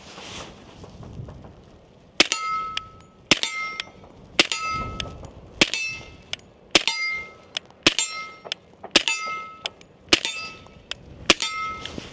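Nine suppressed shots from an FNX-45 Tactical .45 ACP pistol with a YHM Sidewinder suppressor, fired at an even pace about one a second after a short pause. Each shot is followed by a short metallic ring.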